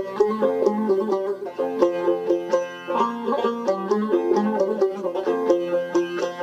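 Instrumental break of a Kurdish folk song: a saz and a round-bodied, skin-topped long-necked lute plucked together in a quick, running melody, with no singing.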